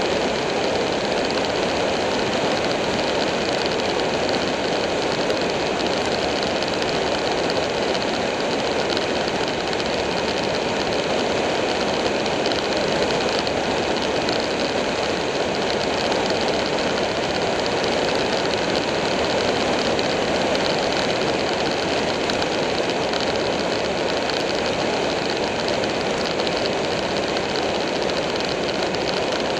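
Buell 1125R's 1125 cc V-twin running steadily at cruising speed, heard from on the moving bike together with wind and road noise. The sound stays even, with no revs or gear changes.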